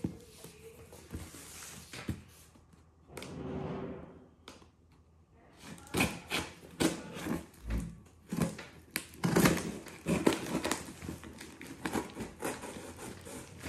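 A knife slitting packing tape on a cardboard box, with the box being handled and its flaps pulled. It gives a run of short scrapes, taps and knocks that come thick and fast in the second half.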